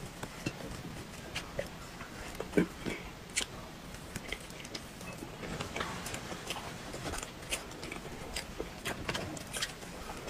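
Eating sounds: a fork clicking and scraping in a cake box as chocolate cake is scooped out, with chewing and mouth sounds between. It is a string of irregular small sharp clicks and taps.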